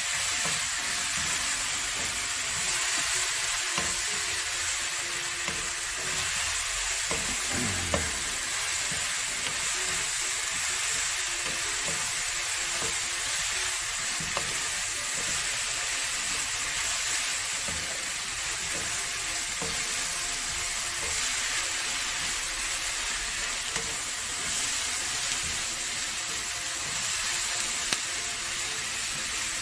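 Sliced eggplant, onion and bell peppers sizzling as they are stir-fried in a frying pan. A wooden spatula stirs and scrapes them, with a few sharp taps against the pan.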